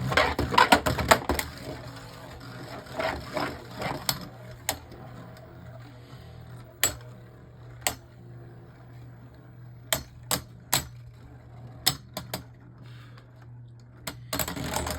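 Two Beyblade Burst tops, Dullahan D4 and Dullahan D5, battling in a stadium. A rapid clatter of collisions in the first second and a half is followed by scattered sharp clacks about a second apart as the tops strike, with another flurry near the end.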